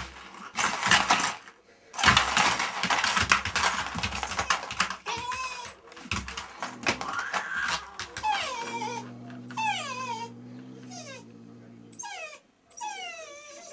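Young dog whining in a run of short whimpers, each falling steeply in pitch, about one a second through the second half. They follow a loud noisy stretch in the first few seconds, and a low steady sound runs beneath them for about three seconds.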